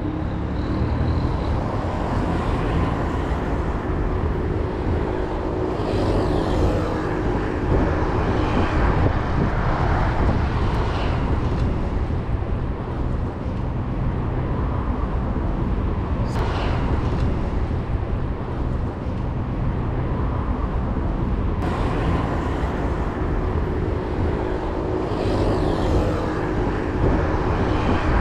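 Steady ride noise from a bicycle moving through city traffic: a low rumble of wind and road on the point-of-view camera's microphone, with cars running nearby.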